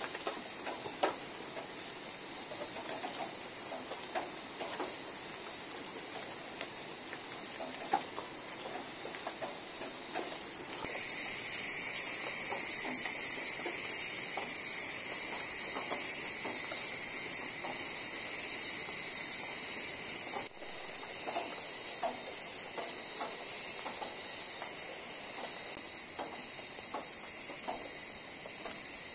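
Small wood cooking fire ticking and crackling faintly under a pot of boiling bananas. About a third of the way in, a much louder steady high-pitched hiss sets in abruptly and runs on, dropping briefly just past the middle.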